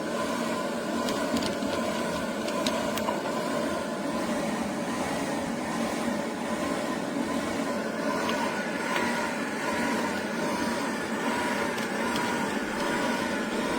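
Portable high-pressure PCP air compressor running steadily, its motor hum wavering in a regular pulse about twice a second.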